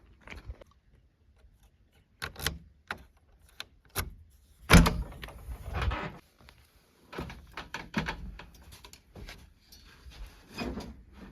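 A string of scattered knocks, clunks and rattles, the loudest about five seconds in, with quiet gaps between them and no engine running steadily underneath.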